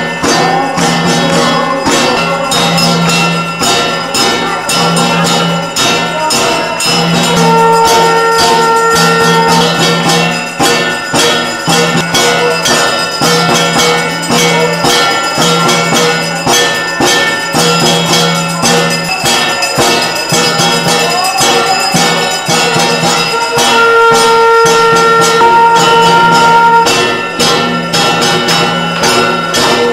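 Hindu devotional music with held melody notes over ringing bells and a fast, steady jingling percussion rhythm.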